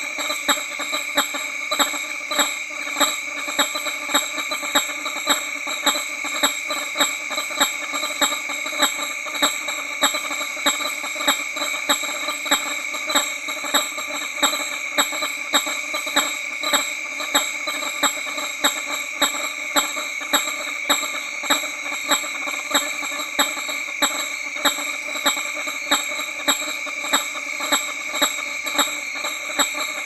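Male hammer-headed fruit bats giving honking display calls: one nearer bat honks in a steady rhythm of about one and a half honks a second over a continuous chorus of other males honking behind it.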